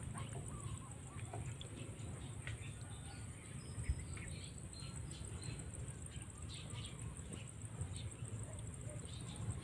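Outdoor farm ambience: scattered bird and poultry calls over a steady, fast-pulsing high buzz and a low constant rumble, with one sharp thump about four seconds in.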